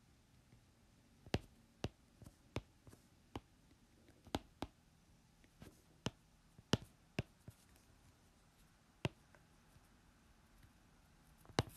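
Pen writing by hand on paper: a string of about fifteen sharp, irregular clicks and taps as the pen tip meets the page, over a faint room hush.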